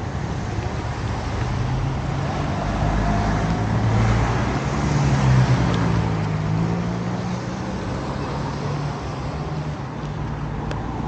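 Road vehicle engines running at a roadside: a steady low engine hum, with one engine growing louder and fading again about four to six seconds in.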